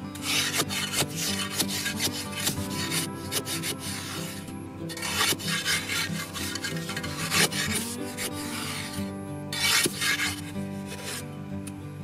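A metal digging bar scraping and grinding into dry, sandy soil as it bores a narrow hole, in three stretches of a few seconds with short pauses between. Background music plays underneath.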